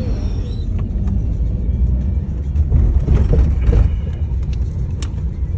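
Steady low road rumble of engine and tyres inside a moving car's cabin, with a few sharp clicks or rattles and a brief louder surge about three seconds in.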